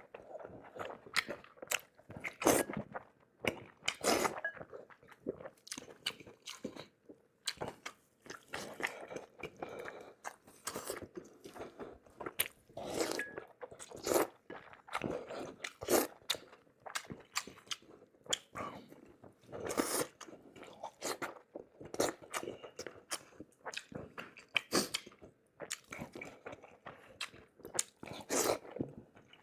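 Close-miked mukbang eating: a person biting and chewing food in irregular bursts, with crisp crunching and wet mouth sounds.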